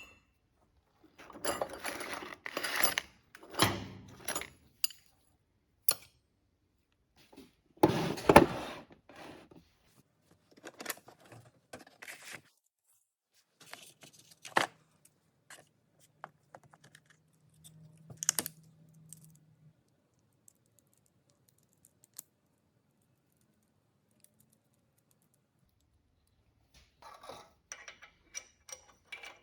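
Intermittent workshop handling sounds: clusters of metallic clinks, rattles and knocks, with one louder knock about a third of the way in. A faint low hum runs for a few seconds in the middle.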